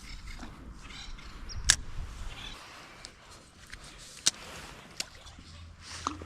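Gear being handled in a small fishing boat: a few sharp clicks and knocks, the loudest about two seconds in, over faint rustling, with a low hum coming in near the end.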